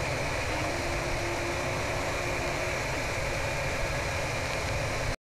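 EmBlaser 3W diode laser engraver running a raster engraving job: a steady mechanical whir and hiss from the machine as the laser head moves across the work, with a faint steady tone that comes in about a second in and fades about three seconds in. The sound cuts off suddenly near the end.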